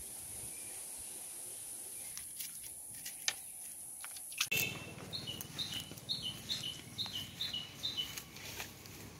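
A steady high insect drone with a few light clicks, then from about four and a half seconds in a bird calling a two-note chirp, high then lower, over and over at about two to three a second.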